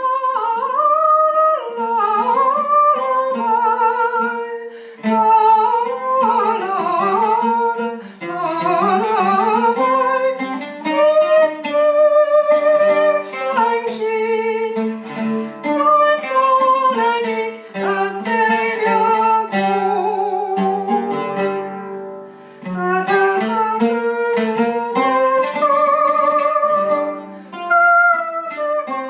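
A woman's mezzo-soprano voice sings a wavering, ornamented melody while she accompanies herself on the oud, its plucked notes sounding under the song.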